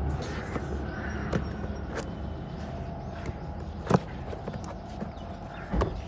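Cardboard box of a new CV joint kit being handled and opened by hand: a few scattered knocks and rustles, the sharpest about four seconds in, over a steady low background hum.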